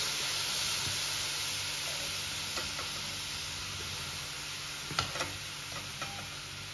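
Thickened milk sizzling on hot caramel in a non-stick kadai as a steel ladle stirs it, the hiss slowly dying down; the caramel hardens the moment the milk goes in. A sharp clink of the ladle about five seconds in.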